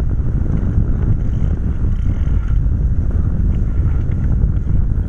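Wind buffeting the microphone of an onboard camera on a sailing keelboat under way: a loud, steady low rumble with no break.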